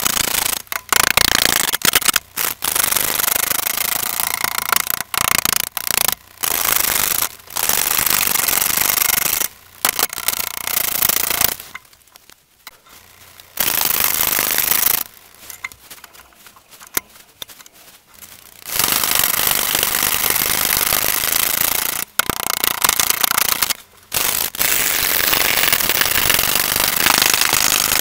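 A turning tool roughing down a large green-wood log spinning on a wood lathe: loud, rough cutting noise that flickers as the irregular, off-centre blank knocks against the tool. It falls quiet twice for a few seconds near the middle, when the tool is off the wood.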